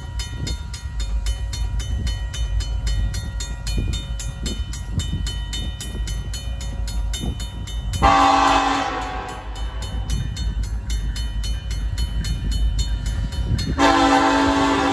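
Safetran mechanical crossing bell ringing in steady, rapid strikes while an approaching Union Pacific locomotive sounds its horn: one long blast about eight seconds in that trails off, and a second, equally loud blast starting near the end.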